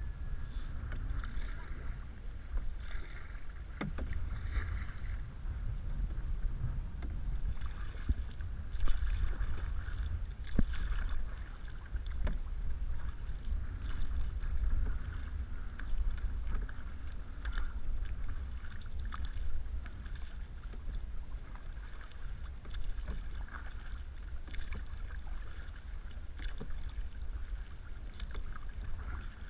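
Canoe paddles dipping and pulling through lake water, with repeated swishes and splashes from the strokes and a few sharp knocks of a paddle against the canoe. A low wind rumble sits on the microphone throughout.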